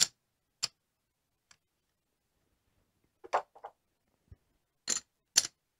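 Casino chips clicking as they are picked up and stacked: about eight or nine short, sharp clicks at irregular intervals, with a pause of roughly a second and a half in the middle.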